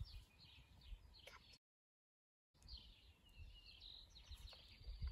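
Faint bird chirps over a low outdoor rumble, broken by about a second of dead silence a little before the middle.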